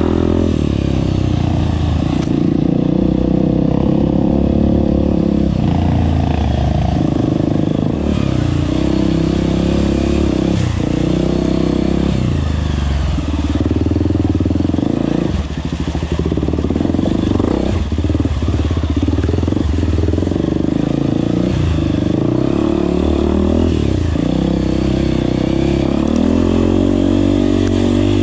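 Honda CRF250F dirt bike's single-cylinder four-stroke engine running under load. It revs up and eases off again and again as the rider works the throttle.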